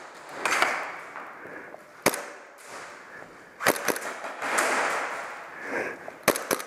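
Airsoft pistol shots: about six single sharp cracks at uneven intervals, two of them close together near the end, with stretches of rustling noise in between.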